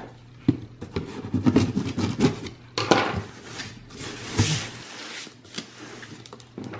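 A cardboard shipping box being handled on a wooden table: a couple of knocks, then scraping and rustling of hands and cardboard, with two longer hissing scrapes in the middle.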